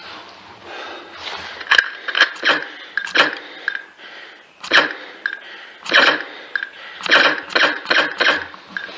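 MP-9 laser tag blaster firing, its speaker playing electronic shot sounds: about a dozen sharp shots, single and in quick runs, coming faster near the end.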